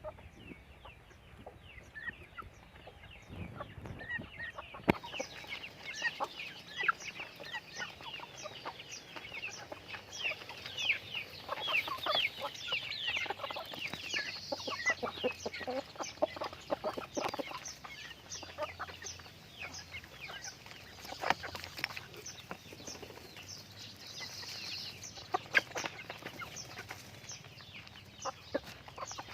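A flock of chickens clucking, with many short, high, falling peeping calls overlapping throughout.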